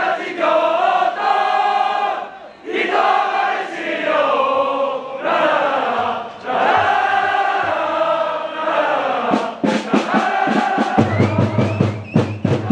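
A crowd of football supporters singing a chant together in long, held lines. In the last few seconds a fast, even beat comes in under the singing.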